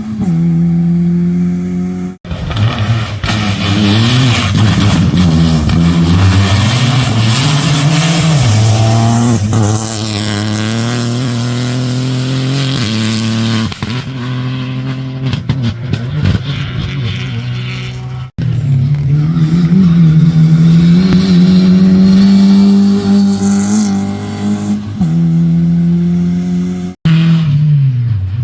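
Rally car engines revving hard, their pitch climbing and dropping again and again through acceleration and gear changes. The sound breaks off abruptly three times as one pass cuts to the next.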